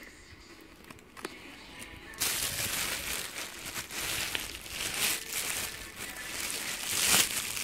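Clear plastic wrapping crinkling and rustling as it is handled, starting about two seconds in and loudest near the end.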